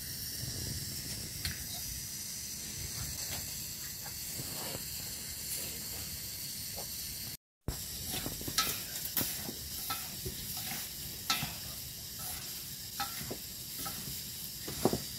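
Flour and water being mixed by hand in a steel bowl to make dough, with water poured in from a small cup. The mixing comes as many short wet clicks and soft taps against the metal bowl over a steady low hiss. There is a brief gap of silence about halfway.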